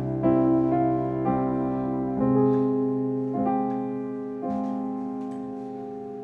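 Piano playing slow, held chords as the introduction to a gentle worship song. A new chord is struck about once a second and left to ring and fade.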